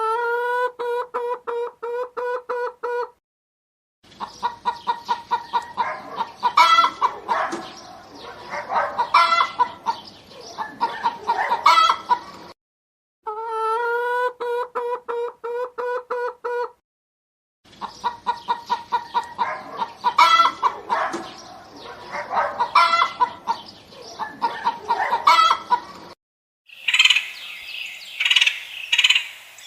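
Chickens clucking and cackling: a run of rapid, even-pitched clucks, then a busier passage of several birds cackling with louder squawks; the same two passages repeat. Near the end a different, higher-pitched bird call takes over.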